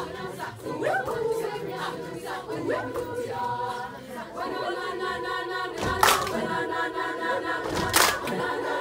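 Mixed high school choir singing a cappella, moving lines that settle into held chords about halfway through, with two sharp hits about two seconds apart near the end.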